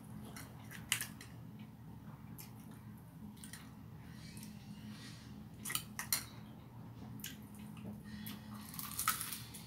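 Spoon and plates clinking as food is served and eaten, a few short sharp clinks: about a second in, twice a little past halfway, and near the end. A steady low hum runs underneath.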